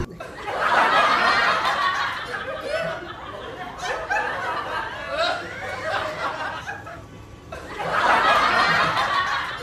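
Laughter from a crowd or audience, loudest in a swell just after the start and again near the end.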